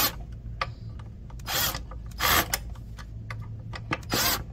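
Cordless drill with a socket bit driving the lock-washered mounting bolts of a scooter's trunk, in about four short noisy bursts.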